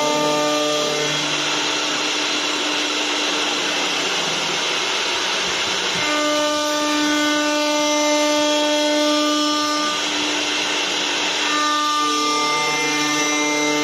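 CNC wood lathe's electric router spindles whining at a steady pitch as their cutters carve spiral twists into two square wooden blanks. A rough rushing cutting noise swells over the whine twice, from about a second in to about six seconds, and again shortly before the end.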